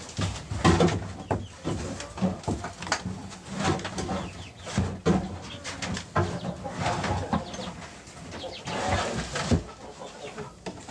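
Chickens clucking and cooing, mixed with repeated knocks and clatters as stacked pails are handled and pulled apart.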